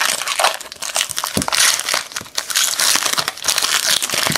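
Clear plastic trading-card wrapper crinkling and crackling as hands peel it open, a continuous run of sharp crackles.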